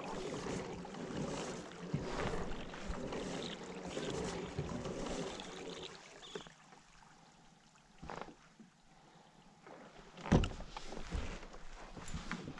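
Water swishing along a plastic fishing kayak's hull as the kayak is moved and turned, the wash swelling and easing about once a second for the first half. Then it goes quieter, with a few sharp knocks on the hull, the loudest about ten seconds in.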